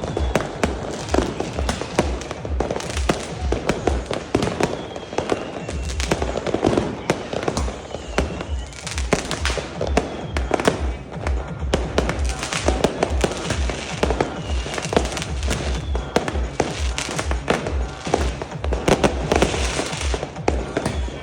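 New Year's Eve fireworks going off, dense bangs and crackles following one another in quick succession, over music with a steady low beat.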